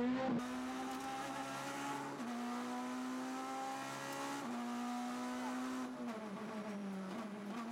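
Rally car's two-litre normally aspirated engine heard from inside the car at speed, its pitch stepping at gear changes about every two seconds.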